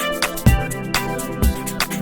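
Background music with a steady beat: a kick drum about twice a second under sustained instrumental tones.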